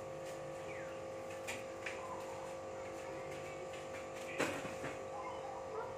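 Light knocks and bumps as a mattress is handled and carried out, with one louder knock about four and a half seconds in, over a steady hum.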